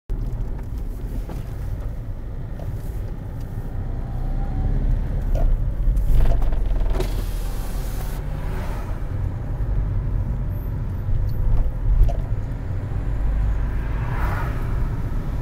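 Steady low rumble of a car's engine and tyres heard from inside the cabin while driving, with a brief rush of an oncoming car passing close by about halfway through.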